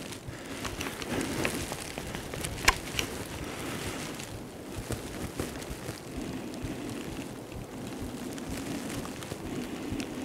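Wind noise and rustling on the microphone, an uneven crackling hiss, with a few sharp clicks, the loudest a little under three seconds in.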